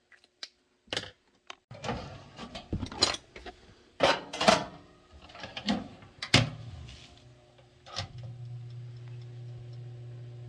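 A run of clicks and knocks, then a countertop toaster oven set to convection running with a steady low hum for the last couple of seconds.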